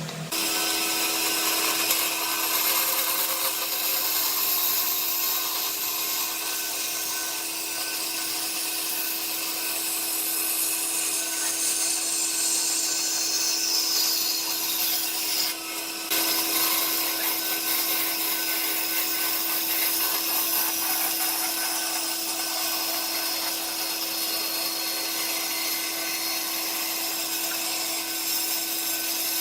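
Electric power tool running steadily on wood, a constant motor hum under a dense hiss of cutting or sanding. It breaks off briefly about halfway through, then carries on.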